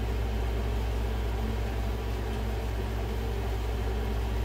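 A steady low mechanical hum with a faint even hiss over it.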